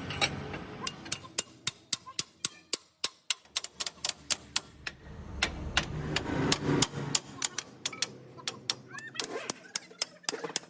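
Rapid series of sharp metallic knocks, about three a second, typical of hammer blows on a truck leaf spring. A low rumble comes in around the middle, and a voice is briefly heard near the end.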